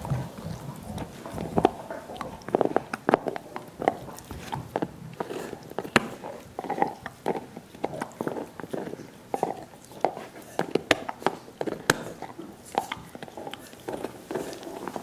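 Dogs chewing and licking soup bones: an irregular run of wet slurps and smacks and sharp clicks of teeth on bone.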